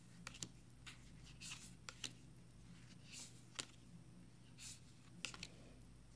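Faint, irregular clicks and a few soft swishes of oracle cards being flipped off a stack by hand and laid down.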